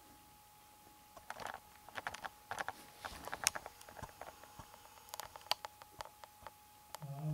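Handling noise from a handheld camera being carried and moved: a string of irregular soft clicks, taps and short rustles over a faint steady hum. Near the end a brief low voice-like sound begins.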